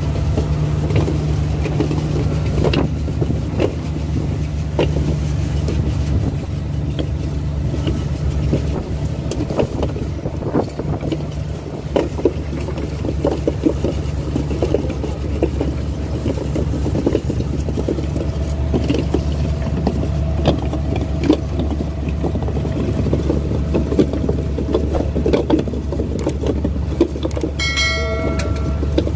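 Fishing boat's engine running steadily with a constant low hum, over frequent knocks and clatter. Near the end there is a brief high-pitched tone.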